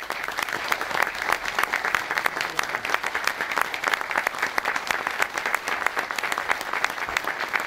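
Sustained applause from a crowd of people clapping hands in a room, a dense, steady patter of many claps.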